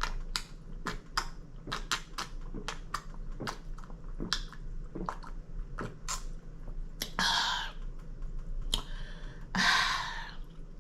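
Close-miked crunchy chewing of crispy fried food: many sharp crunches a few times a second, with two longer noisy rushes of sound about seven and ten seconds in.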